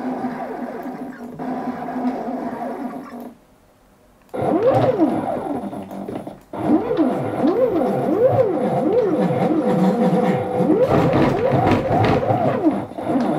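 Stepper motors of a 3D-printed six-axis robot arm whining as the axes move. First a steady whine, then a brief silence about three seconds in, then fast, repeated up-and-down sweeps in pitch as the moves speed up and slow down.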